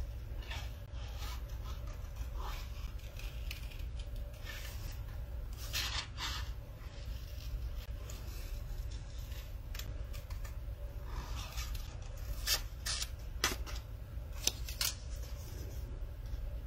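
Small scissors snipping paper card in short, irregular cuts while fussy cutting around a printed flower. A few sharper snips come in the latter part.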